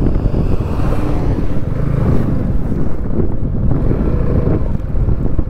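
Motorcycle engine running on the move, with wind rushing over the microphone.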